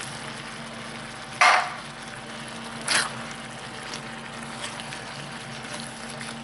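Stainless pan of broccoli, chicken and cheddar cheese soup simmering on a hot plate with a steady low sizzle. Two brief louder sounds from the pan come about a second and a half and three seconds in.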